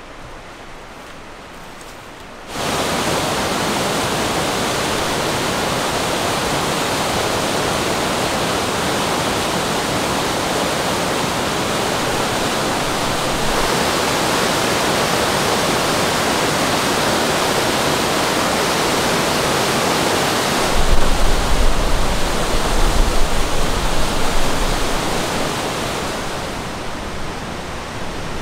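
Whitewater rapids rushing loudly over rocks in a steady, even wash that cuts in suddenly a few seconds in. About two-thirds of the way through, a low, uneven rumble joins it for several seconds, then the rush eases off slightly.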